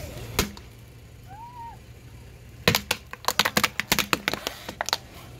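A plastic ghost lantern cracking and snapping under a car tyre as it is crushed. One crack comes near the start, then a quick run of sharp cracks and pops from a little past the middle.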